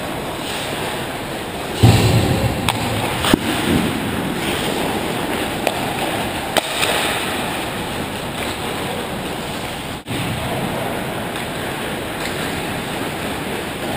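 Ice hockey game on a rink: a steady wash of skate blades scraping and gliding on the ice, with a few sharp knocks, the loudest about two seconds in and another a second or so later.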